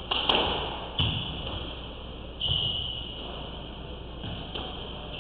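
Squash rally: sharp cracks of racket striking the ball, twice in the first second, ringing in the court, then duller thuds of the ball off the walls and floor.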